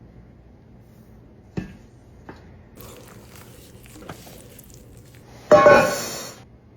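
Kitchen food-preparation sounds: a sharp knock, a few faint handling noises, then a loud burst of crunching or rustling near the end that fades over about a second.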